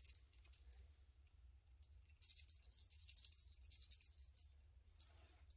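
Small bell on a cat wand fish toy jingling as the toy is shaken and dangled, in quick shakes on and off, busiest from about two seconds in until about four and a half seconds.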